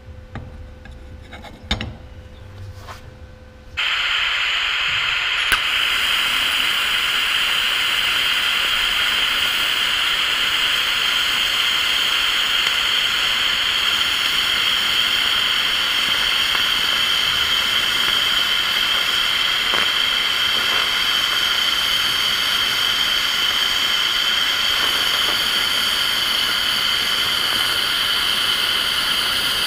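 Lift-TIG welding arc from a Sherman DigiMIG 200 Dual Puls welder, struck about four seconds in, then burning with a steady, even hiss.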